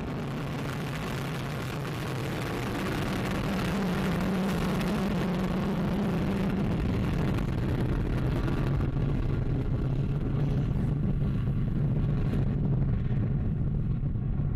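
Vega rocket's solid-fuel first-stage motor at liftoff: a loud, steady rush of noise with a low rumble underneath, its high hiss thinning out about nine seconds in.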